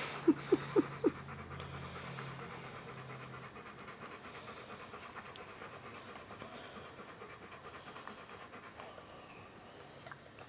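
A dog panting steadily, with four quick, sharp, loud sounds in a row about a second in.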